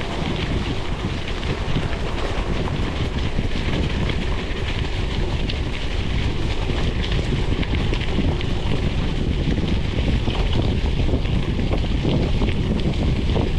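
Wind buffeting a chest-mounted GoPro's microphone as a gravel bike rolls along at speed, with the tyres crunching and pattering over loose gravel. Steady throughout, growing a little louder.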